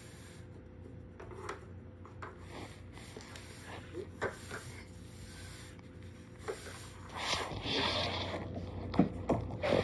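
A hand scraping and sweeping across the floor under a kitchen appliance, knocking small toy balls loose with scattered light taps and clicks. A longer rubbing noise comes about three-quarters of the way through, then two sharp knocks near the end, over a faint steady hum.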